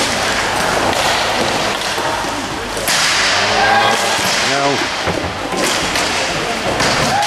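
Inline hockey play: sticks slapping the puck and floor in a few sharp cracks, over a steady wash of skate wheels and hall noise, with a shout around the middle.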